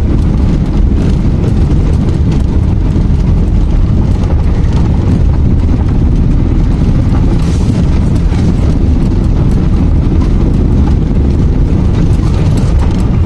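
A vehicle driving over a rough, bumpy gravel road: a loud, steady low rumble of tyres and suspension with constant small clicks and rattles.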